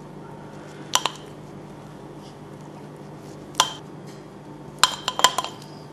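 Silicone pastry brush tapping against the rim of a ceramic ramekin of beaten egg yolk while egg-washing dough: short ringing clinks, one about a second in, another a few seconds later, and a quick run of several near the end.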